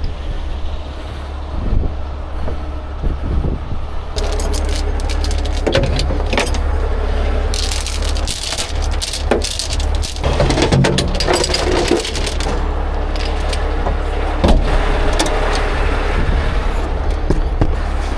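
Steel recovery chains and hooks clinking and rattling as they are handled in a tow truck's equipment compartment, the jangling starting about four seconds in, over the steady low rumble of the rotator tow truck running.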